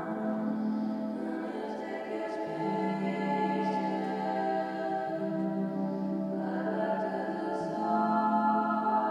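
Slow, sustained music for a contemporary ballet solo: long held chords that shift to new pitches every two to three seconds.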